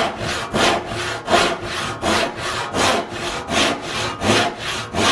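Western handsaw crosscutting a glued-up hardwood panel to length, with steady rasping strokes at about three every two seconds.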